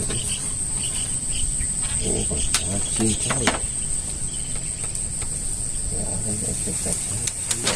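Steady, high-pitched insect chorus of crickets.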